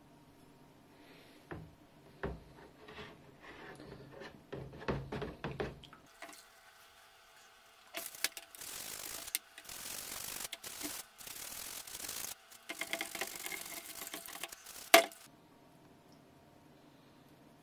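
Antique brass bell handled and knocked a few times, then scrubbed by hand under water in a plastic basin of soapy water: several seconds of swishing and rubbing broken by short pauses, ending in one sharp knock.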